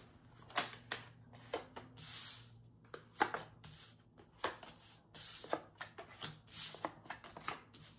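A deck of tarot cards being shuffled by hand: an irregular run of short card swishes and soft taps, a few of them drawn out to about half a second, with brief pauses between.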